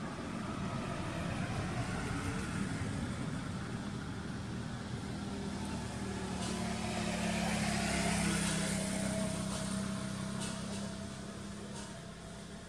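A motor vehicle's engine hum that swells to its loudest about eight seconds in and then fades, as a vehicle passing by.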